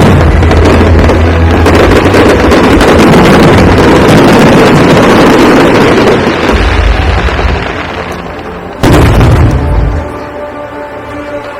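Aerial fireworks shells bursting in a dense, loud barrage of booms and crackle that fades after about seven seconds, then a single sudden boom about nine seconds in.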